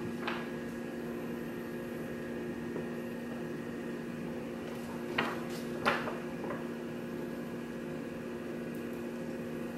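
A few short rustles and taps as comic books are flipped through in a cardboard short box, the two loudest a little past halfway, over a steady hum.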